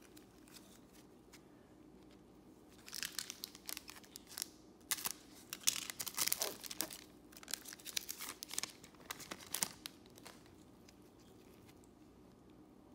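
Rustling and crinkling of gloved hands shuffling through a stack of glossy trading cards, in quick irregular bursts from about three seconds in until about ten seconds in.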